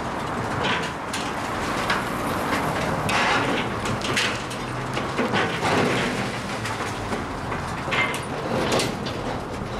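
Building demolition: a steady machine engine rumble under irregular scraping, cracking and clattering of broken debris.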